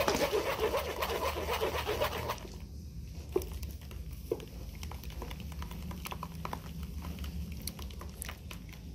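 Blended pomegranate pulp being pressed and stirred by hand in a wire-mesh strainer: quick wet squelching and sloshing that stops about two seconds in, then only faint scattered ticks as the juice drains.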